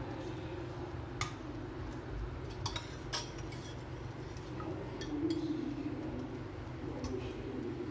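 A perforated steel skimmer clinking against the inside of a stainless steel pressure cooker while boiled sweet potato pieces are scooped out: a handful of sharp metal clinks, spread irregularly, over a steady low hum.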